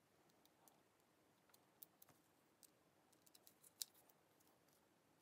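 Faint, scattered small clicks of a screwdriver tip working a terminal screw on a drill's trigger switch, metal tapping on the screw and the plastic switch body, the sharpest click a little under four seconds in.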